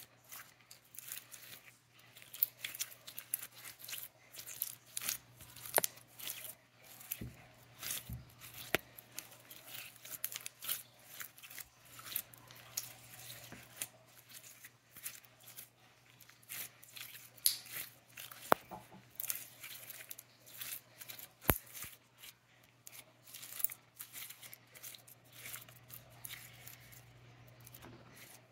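Slime being squished and stretched by hand, giving many short sticky clicks and small pops at irregular intervals. A faint steady low hum sits underneath.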